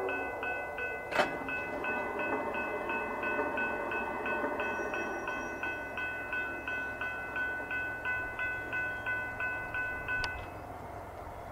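Railroad grade-crossing bell ringing steadily at about three strokes a second over the rumble of a passing train, then stopping near the end. The last of a train horn cuts off at the very start, and a single sharp knock comes about a second in.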